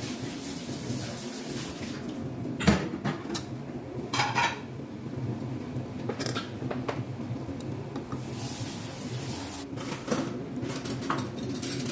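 Metal spoon clinking and scraping against a steel pot as rice is mixed, with several sharp knocks, the loudest about three seconds in and one that rings briefly about four seconds in, over a steady low hum.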